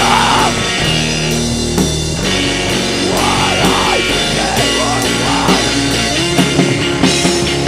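Screamo band recording: distorted electric guitars playing sustained chords over a rock drum kit.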